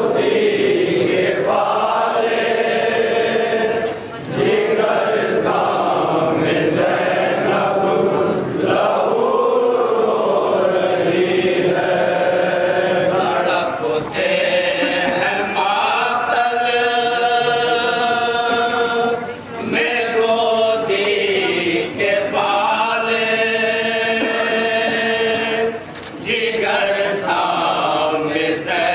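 Male voices chanting a noha, a Shia mourning lament, led over a microphone and sung in long held phrases with brief pauses between them.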